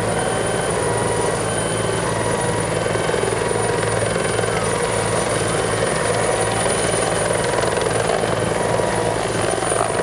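Helicopter hovering overhead during a winch hoist, its rotor and turbine engines running steadily, with a constant high whine above the rotor noise.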